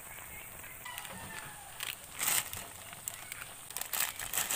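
Squid simmering in a dark sauce in a wok, with short bursts of rustling and crackling, about two seconds in and again near the end, as bundles of dry sotanghon glass noodles are set into the pan.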